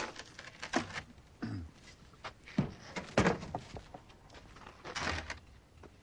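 A wooden domestic ice box being handled, with a series of knocks and thunks as its lid is worked and a block of ice is put into the lined top compartment. The loudest thud comes about three seconds in.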